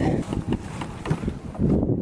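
Wind buffeting the camera microphone in gusts, a low irregular rumble that swells near the end.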